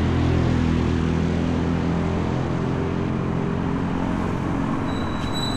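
A vehicle engine running steadily with road noise while travelling along the road, a low, even drone.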